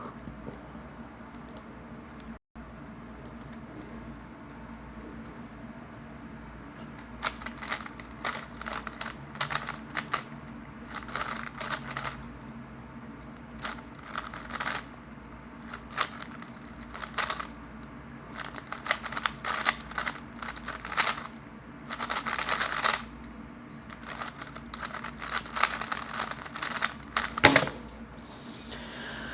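A 3x3 Rubik's cube being turned fast in a timed solve: rapid plastic clicking and clacking in bursts with short pauses between them, for about twenty seconds, ending with a sharp knock.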